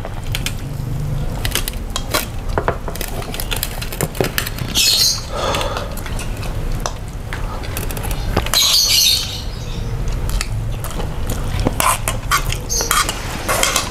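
Spoons and plates clinking and scraping during a meal, a string of short clicks. Two brief hissing sounds about five and nine seconds in.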